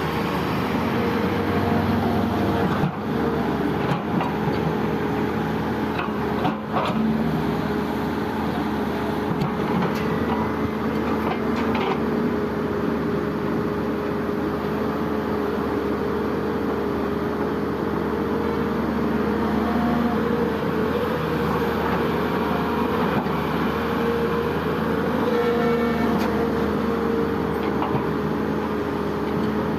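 Engine of heavy machinery running steadily, a constant droning hum with a held tone.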